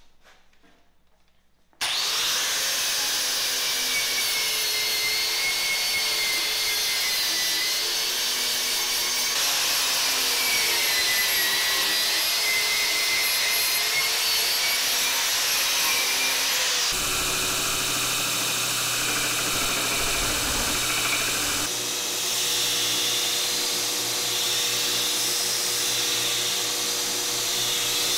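Angle grinder starting abruptly about two seconds in and grinding the steel of a forged axe head, its pitch dipping and rising as it is pressed into the work. About two-thirds of the way through the sound changes to a belt grinder running more steadily as the axe's edge is ground on the belt.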